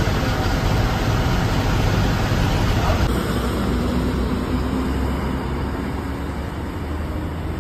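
Steady engine and road rumble from a moving AC sleeper coach. About three seconds in it changes sharply to the coach's engine heard from the street as it pulls away, a steady low rumble with a faint engine tone rising slightly.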